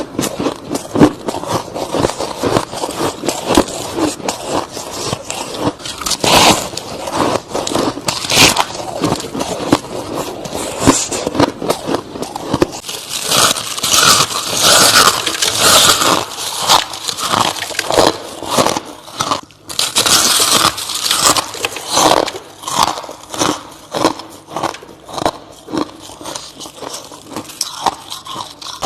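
Soft frost ice being bitten and chewed close to the microphone: a dense, continuous run of crisp crunches, several a second.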